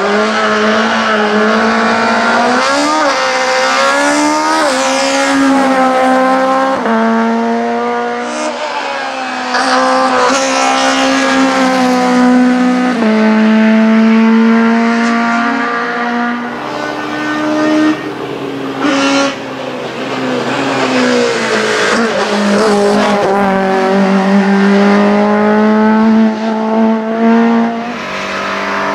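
VW Golf Mk2 hillclimb race car in the 2000 cc touring-car class, pulling away from the start and accelerating hard up the course. The engine note climbs and drops back again and again as it shifts up through the gears.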